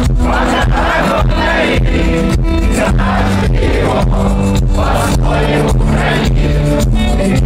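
Live rock band playing loudly with a steady beat.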